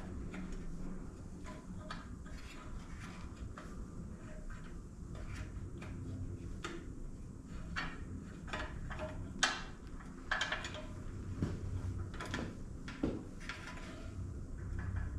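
Scattered light clicks and knocks of hand work on motorcycle hardware: wires being fished through and a bolt being fitted and tried for length, over a low steady hum.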